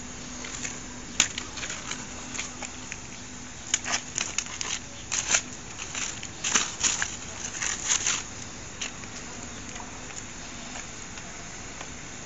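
A goat chewing and tearing a sheet of paper: irregular crackling and crinkling, busiest in the middle and dying out near the end.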